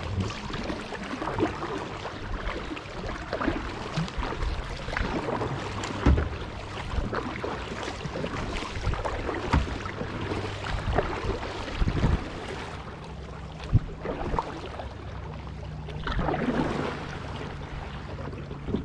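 Kayak paddling through lily pads: paddle strokes splashing and dripping, with scattered knocks and scrapes against the hull. A steady low hum runs underneath.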